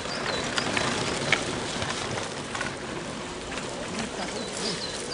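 Small bird chirping a few times near the end, over a steady noisy background with a few scattered clicks.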